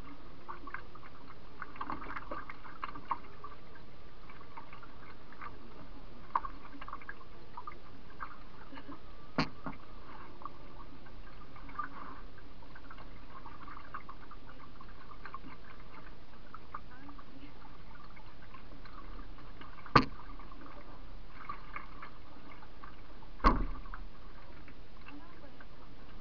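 A canoe drifting on a river, heard from a camera on its bow: water lapping at the hull with faint scattered ticks over a steady hiss. Three sharp knocks, about 9, 20 and 23 seconds in, from a paddle striking the canoe's hull.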